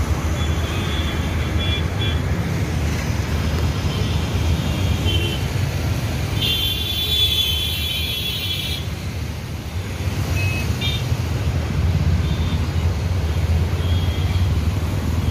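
Busy road traffic: trucks and buses run past close by with a steady low rumble. A vehicle horn sounds for about two seconds midway, and a few short high chirps are scattered elsewhere.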